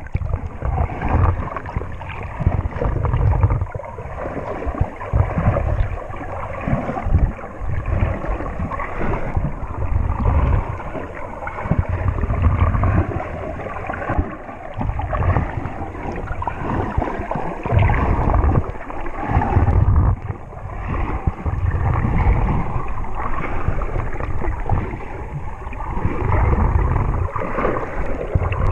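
Sea water heard from just under the surface: muffled sloshing and gurgling, with irregular low surges every couple of seconds as the water moves.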